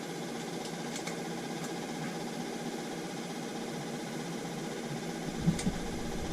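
Steady mechanical hum of a small motor running, with a few faint clicks; about five seconds in a low rumble comes up and two short thumps are heard.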